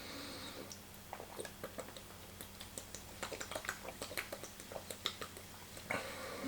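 Close-miked drinking of cold water: a string of faint, irregular wet clicks from the mouth and throat as it is swallowed.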